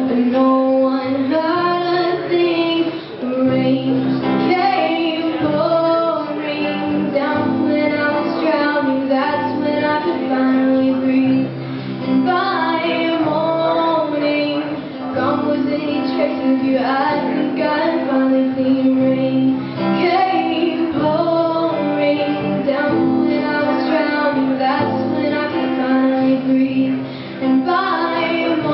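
A young girl singing a song while strumming her acoustic guitar, the voice carrying the melody over steady strummed chords.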